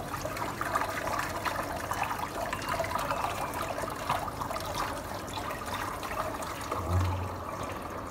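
Water running and trickling steadily.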